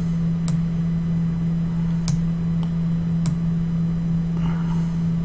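A steady low hum with a few sharp computer-mouse clicks over it, spaced irregularly.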